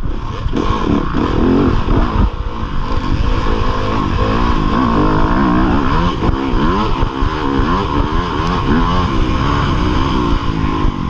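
A 2015 Yamaha YZ250FX dirt bike's 250cc four-stroke single-cylinder engine, heard close from the rider's chest, revving up and down again and again under changing throttle over a rough low rumble.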